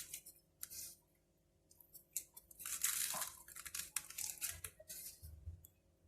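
Coarse salt crunching and rasping as it is packed by hand into quartered lemons, in short gritty bursts.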